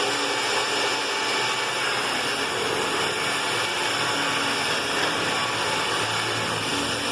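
Electric concrete drill running steadily as it bores through concrete, a constant motor whine over grinding noise.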